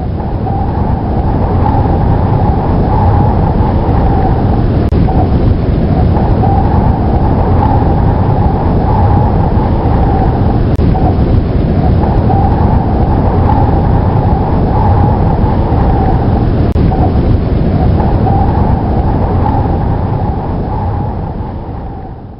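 Loud, steady storm-wind ambience of a snowstorm, a deep rushing noise with a howl that dips briefly about every six seconds, fading out near the end.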